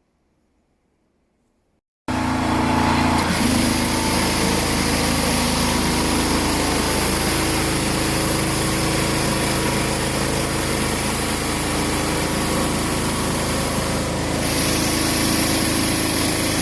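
Small-engine pressure washer running steadily, with the hiss of water spraying through a 20-inch BE Whirl-A-Way surface cleaner. It cuts in suddenly about two seconds in, and the hiss grows louder about fourteen seconds in.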